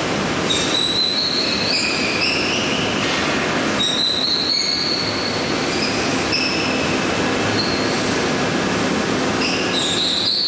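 High-frequency welded fin-tube machine running: a steady mechanical noise with metal squeals every second or two, high-pitched and some rising slightly in pitch.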